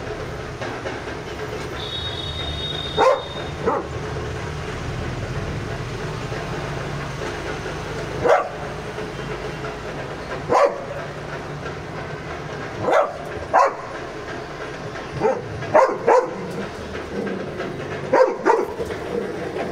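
A dog barking in short single barks, about a dozen at irregular intervals, over a steady low background rumble.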